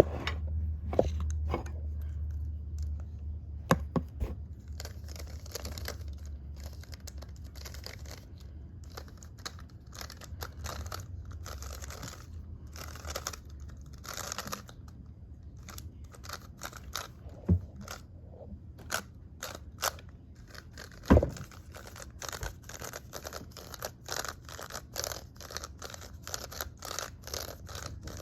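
Plastic Skewb puzzle being twisted, its pieces clicking and scraping with each turn. A few sharper knocks come along the way, and the turns quicken into a rapid run of clicks over the last several seconds.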